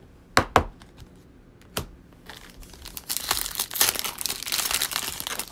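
A few sharp clicks, then a foil trading-card pack wrapper torn open and crinkled by hand from about three seconds in.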